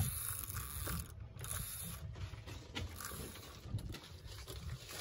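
Spinning reel being cranked, its gears ticking, over a low rumble of wind and water.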